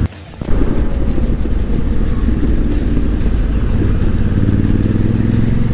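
Honda Africa Twin's parallel-twin engine running under way, with wind and road noise. The sound drops out briefly at the very start, then the engine note holds steady and edges up in pitch near the end as the bike gathers speed.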